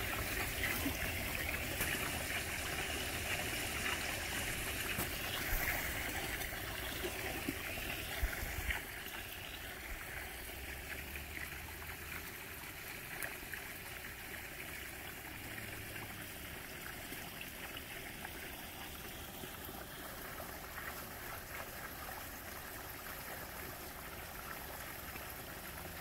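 Steady trickle of running water, a continuous hiss that is a little louder for the first eight or nine seconds and then settles lower.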